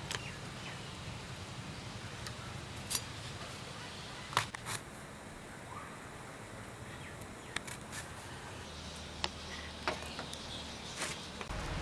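Scattered sharp clicks and taps of small onions being cut with a hand-held curved blade and pieces dropping into a clay pot, about nine in all at uneven intervals, over a low steady hum.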